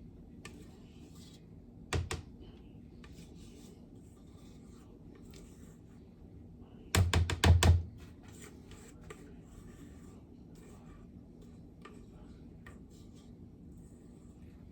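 A utensil scraping cake batter out of a mixing bowl into a baking pan, with one sharp knock about two seconds in and a quick run of about five sharp taps a few seconds later, the loudest sound.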